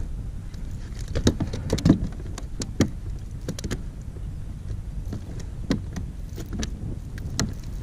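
Irregular clicks and knocks from hands handling caught fish against the plastic hull and deck of a sit-on-top kayak, busiest in the first few seconds, over a steady low rumble.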